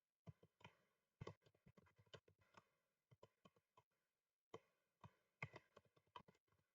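Faint computer keyboard typing: irregular single keystrokes with short pauses between them.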